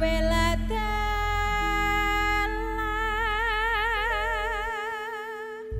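Slow Javanese solo singing in long held notes with a wide vibrato, over steady ringing tones from gamelan instruments. The sound cuts off sharply near the end.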